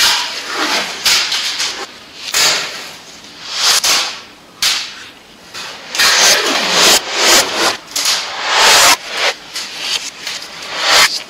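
Adhesive tape being pulled off the roll in repeated ripping pulls, some short and some a second or more long, with hands rubbing and pressing strips onto the surface between them.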